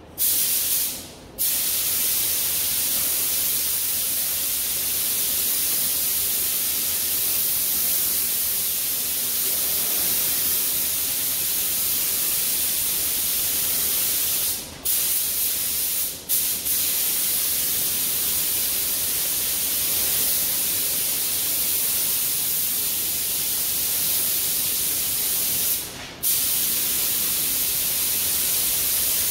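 Compressed air hissing steadily through a gravity-feed paint spray gun spraying base coat onto a car bumper. The hiss breaks off briefly a few times where the trigger is let go: about a second in, twice in the middle, and once near the end.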